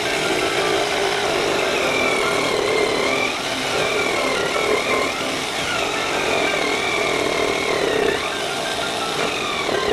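Electric jigsaw running steadily while cutting a wooden lining board, its motor whine wavering up and down with the load.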